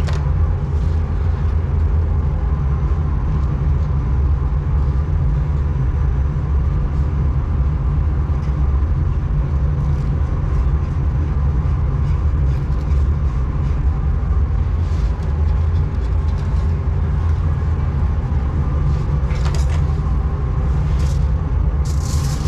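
Steady low rumble of kitchen machinery, with a faint steady hum above it. Near the end, aluminium foil crackles as it is pulled from the roll.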